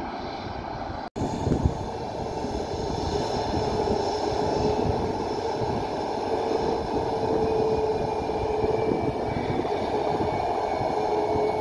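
Jet engines of a TUI Boeing 737 taxiing past at idle: a steady rumble with a held hum and a thin higher whine, the hum rising slightly in pitch. The sound drops out for an instant about a second in.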